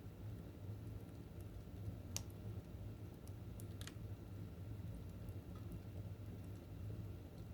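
Wood fire burning in a fireplace: a faint, steady low rumble with a few sharp crackles, the clearest about two seconds in and another near four seconds.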